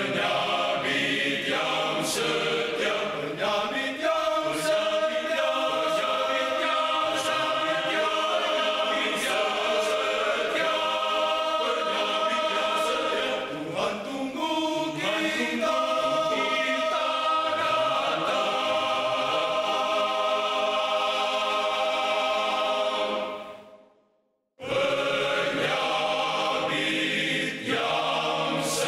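Male choir singing. Near the end the singing stops completely for about a second, then starts again.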